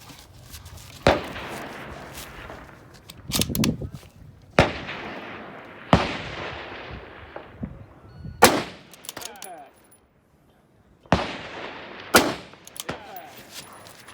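A precision rifle firing a string of about six shots, spaced one to three seconds apart, each followed by a long rolling echo.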